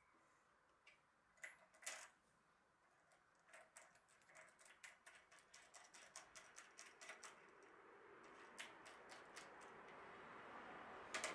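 Faint metallic clinks as a steel washer and nut are handled on an aluminium step clamp and machine table. Then a run of light, even clicks, about three or four a second, as the nut is spun by hand down the clamp's threaded stud. A faint hiss rises toward the end.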